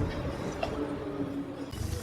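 Chicken pakora batter going into hot oil in a kadai; a frying sizzle starts near the end.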